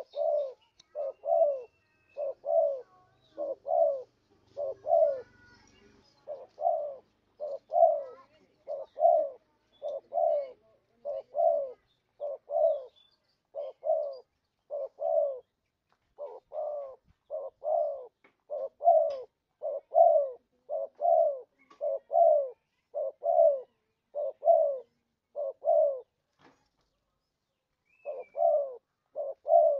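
Spotted dove (terkukur) cooing: a long run of low coo notes in pairs, about one pair a second, breaking off briefly near the end before resuming. It is a lure call, the kind played to draw in wild spotted doves.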